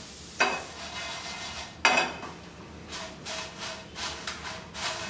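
Dried Byadgi red chillies being roasted in a non-stick pan and turned by hand, rustling and scraping in short uneven strokes through the second half. Two sharp knocks come in the first two seconds, the second ringing briefly.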